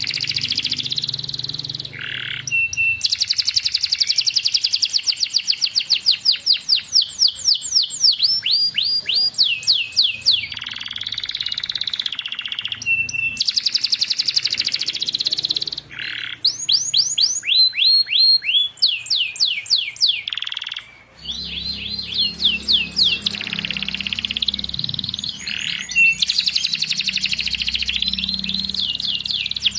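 Domestic canary singing a long run of rapid repeated trills and downward-sweeping whistled notes, broken only by brief pauses.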